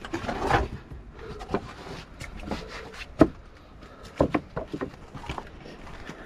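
Footsteps of a hiker walking along a trail: irregular scuffs and knocks, the sharpest about three seconds in.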